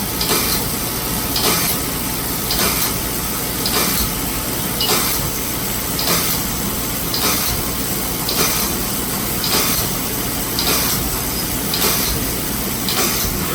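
CNC machine running a Tapmatic self-reversing tapping head with a roll form tap through a series of holes: a short, bright surge of noise comes evenly about once a second as each tapping cycle repeats, over the machine's steady running noise.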